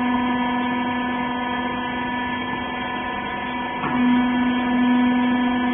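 Baler's hydraulic power unit running with a steady, fixed-pitch electric hum. About four seconds in there is a short knock, and after it the hum is a little louder.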